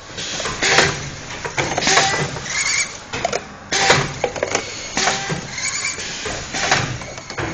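Automatic heat transfer printing machine for cups running through its cycle: clanks and short hisses that repeat about every three seconds.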